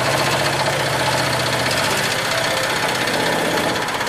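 Bench-mounted power saw running steadily as a block of hard reddish wood is fed across its table and cut, a constant machine noise with a fine, even rattle.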